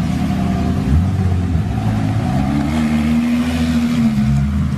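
Supercar engine running at low speed with a deep, steady rumble; its pitch rises a little after about two and a half seconds, holds, then eases back down near the end.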